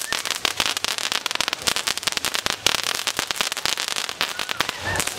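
Firecrackers going off in a rapid, irregular string of sharp cracks.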